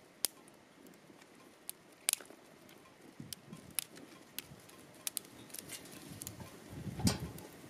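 Small wood fire of twigs and sticks crackling, with irregular sharp pops and clicks. A louder dull knock comes near the end.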